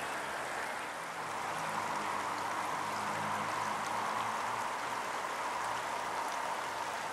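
Shallow river running over stones and rocks, a steady rush of water.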